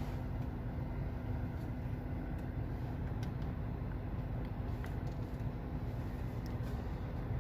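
Hyundai Elite i20's engine idling, heard inside the cabin as a steady low hum with a faint steady tone, and a few faint clicks.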